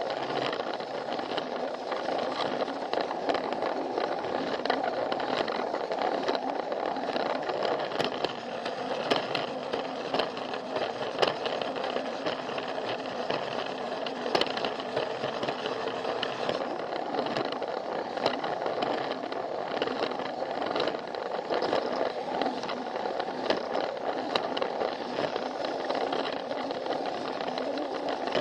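Plarail battery-powered toy train running along plastic track, heard close up from a camera riding on it: a steady motor whir and wheel rattle with frequent small clicks as the wheels cross the track joints.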